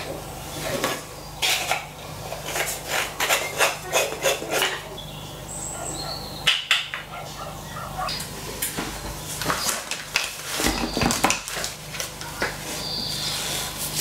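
Small metal discs clicking and clinking against each other as they are handled and pressed into place, in a series of quick sharp clicks.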